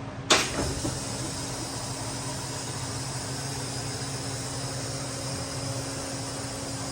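A short click near the start, then a steady mechanical hum with an even hiss, like a shop ventilation fan running.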